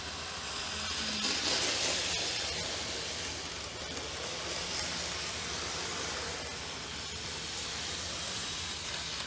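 N-gauge model train's PWM-driven DC motor and wheels running on the track, with a steady hiss-like noise that grows louder about a second and a half in and then eases. The PWM drive is set to imitate a VVVF inverter train's sound.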